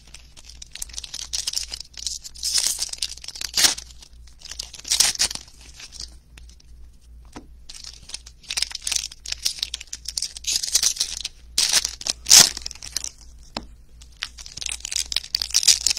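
Foil wrappers of Panini Prizm baseball card packs being torn open and crinkled by hand, in a string of short, irregular rustling bursts, the sharpest about twelve seconds in.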